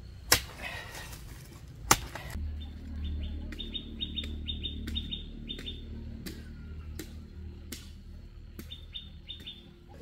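A digging tool strikes the ground twice, about a second and a half apart. Then a bird calls in quick runs of short falling chirps over a low steady hum.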